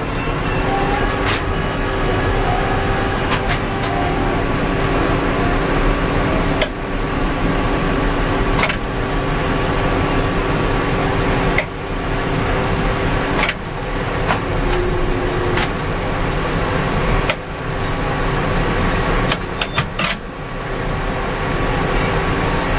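Heavy machinery running steadily, likely a crane's engine, with a few sharp clicks and several brief drops in level.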